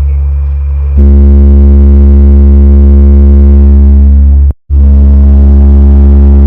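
Repaired 12-inch loudspeaker playing a loud, steady deep bass tone during its sound test. The tone stops for an instant about four and a half seconds in.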